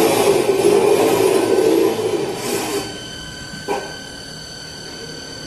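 CNC wood lathe running its hole-drilling program: loud cutting noise for nearly three seconds, then a quieter machine hum with steady whining tones and a single click a little before four seconds.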